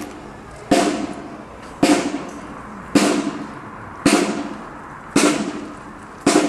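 Marching band drums struck in a slow, steady beat, about one stroke a second, each stroke ringing and fading before the next.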